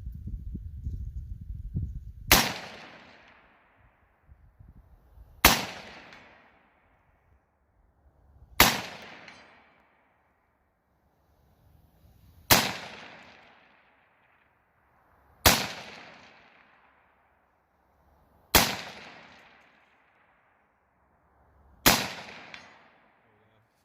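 Seven single rifle shots from an Anderson AM-15 AR-15 chambered in 7.62x39, fired slowly about every three seconds, each followed by a fading echo. A low rumble comes before the first shot.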